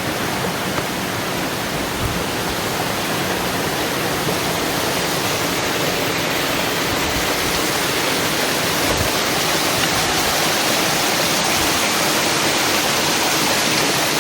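Rushing river water tumbling over rocks near a waterfall: a steady, loud rush that slowly grows a little louder.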